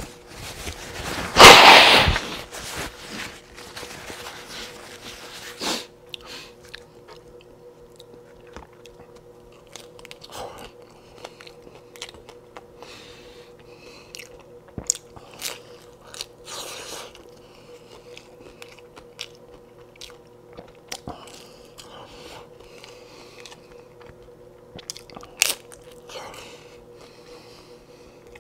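Close-miked eating: crunchy bites and chewing of corn-tortilla beef tacos, with scattered sharp crunches. About a second and a half in comes a loud, second-long rustle of a paper napkin.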